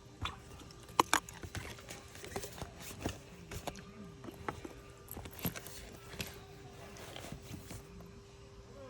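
A series of irregular knocks and taps, the loudest a pair about a second in, over a faint steady hum.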